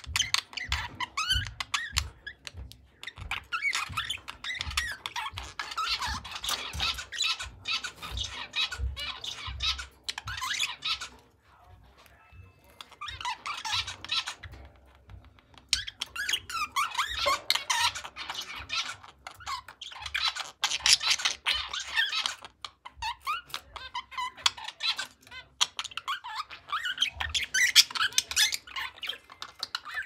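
Budgerigars chattering and warbling: a fast, squeaky run of chirps and clicks, broken by short pauses about twelve and fifteen seconds in.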